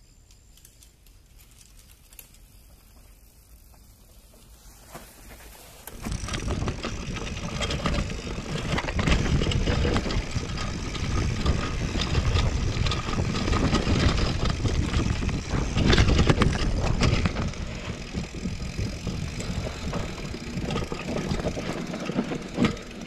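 Mountain bike riding down a dirt singletrack, heard from a handlebar-mounted camera: a loud, dense rumble of tyres on dirt and the bike rattling over bumps, with wind on the microphone. It starts suddenly about six seconds in, after a stretch of quiet forest ambience.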